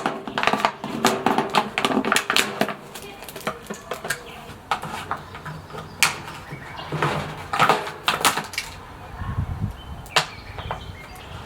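Handling noise: an irregular run of sharp clicks, crackles and knocks, with a low rumble about nine seconds in.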